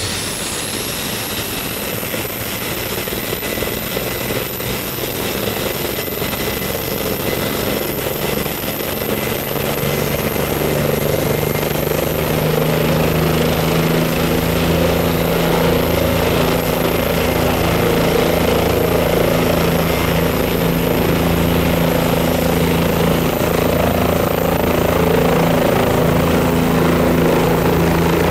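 Helicopter running, its turbine whine slowly rising in pitch while the rotor's rhythmic low beat grows stronger and the whole sound gets louder.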